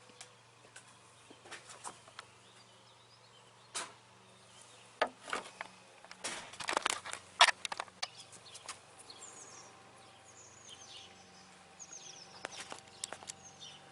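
Scattered light clicks and knocks from small metal parts being handled at the motorcycle's brake lever, loudest and most frequent about six to eight seconds in. Birds chirp in short falling calls through the second half.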